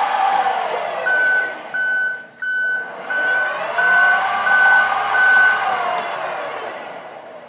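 Electric forklift motor run by a repaired Doosan controller, whining up and back down in pitch as it winds down near the start and again from about three to six seconds in. A reversing alarm beeps seven times, about three beeps every two seconds, which shows reverse direction is selected.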